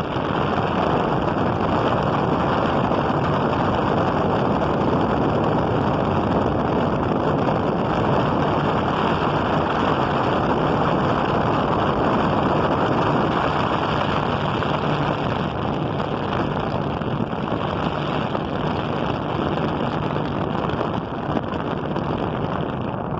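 Electric turbo fan with 40 cm blades running at speed: a steady rush of air, with wind buffeting the microphone.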